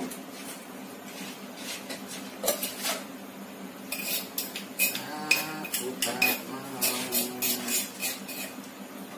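A metal utensil clinking and scraping against metal cookware: a couple of knocks, then from about four seconds in a quick run of clinks, several a second, some with a short metallic ring.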